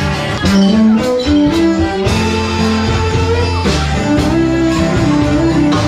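Country band playing an instrumental passage between sung lines, with guitar to the fore.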